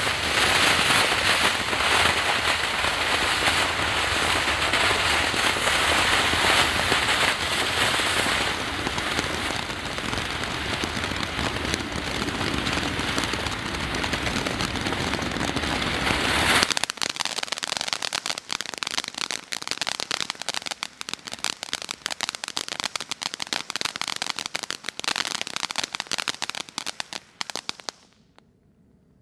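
Cutting Edge Night Owl firework fountain burning: a loud, steady spray hiss that changes tone about eight seconds in. About seventeen seconds in it switches suddenly to dense crackling, which thins out and dies away near the end.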